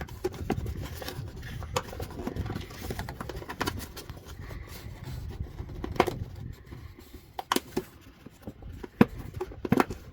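Water heater parts being handled and pushed back into place during reassembly, with scraping and scattered sharp clicks and knocks, the loudest near the end.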